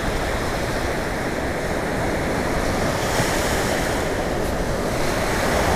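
Steady wash of ocean surf breaking on the beach, with wind on the microphone.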